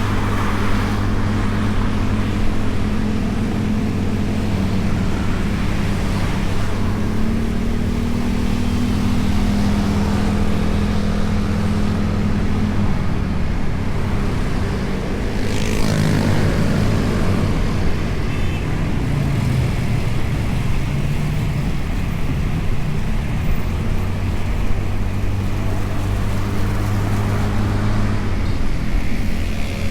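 Honda Beat scooter's single-cylinder engine running steadily at riding speed, picked up by a camera mounted on the bike, with road and traffic noise around it. About halfway through the steady engine note breaks off and wavers in pitch for several seconds before settling back to a steady hum.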